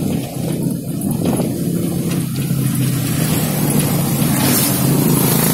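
Motor vehicle engine running steadily, with a rush of road and wind noise over it.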